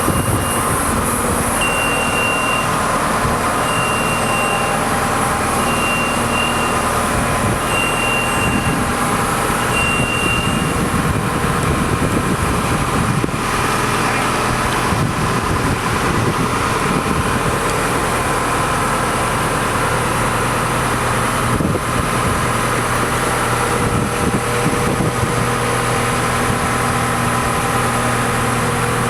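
Aerial lift's engine running steadily as the work platform is raised. A high alarm beep sounds about every two seconds for the first ten seconds or so.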